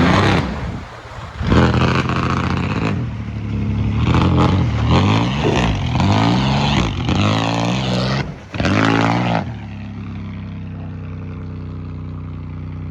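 Car engine revving hard, its pitch rising and falling several times, with a rushing noise of tyres churning through a mud hole. About nine and a half seconds in it drops to a steadier, quieter running.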